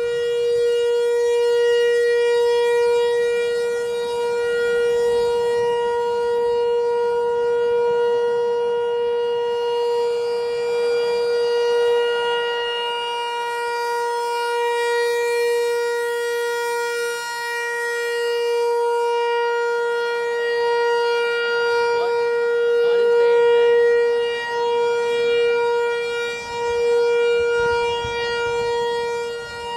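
American Signal T-128 outdoor warning siren sounding the steady full-alert tone: one held pitch, its loudness swelling and dipping slightly.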